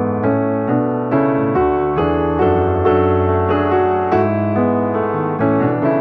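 Background piano music: a steady run of notes and chords, struck about twice a second.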